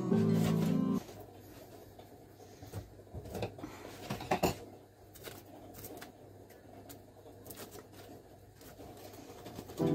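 Faint crinkling, rustling and a few small taps as a roll of cling film is picked up and handled, the loudest clicks about three to four and a half seconds in. Background music plays for the first second.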